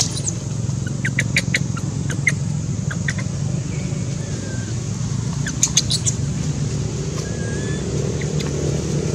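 A steady low hum, like a motor running, with scattered sharp clicks and a few faint, short high squeaks.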